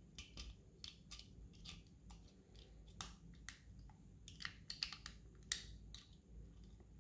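Faint, irregular clicks and taps of small plastic transformer toys being handled and turned in the hand.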